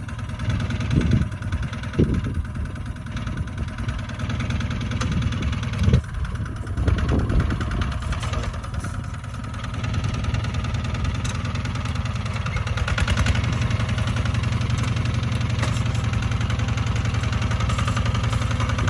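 Kubota RT155 walking tractor's single-cylinder diesel engine running steadily while it plows, with a knock about two seconds in and another about six seconds in, and a little louder in the last third.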